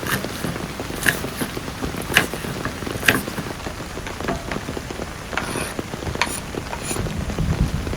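Heavy rain falling on a surface, with scattered sharp clicks and knocks over it.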